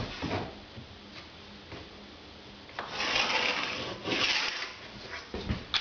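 Scratchy rubbing on a benchtop surface as it is marked out with a folding rule: two short rubs about three and four seconds in, after a few light knocks at the start.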